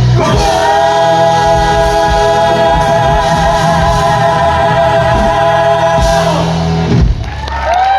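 Several singers holding a long final chord over a live band at the end of a musical-theatre song, cut off together with a closing hit about seven seconds in.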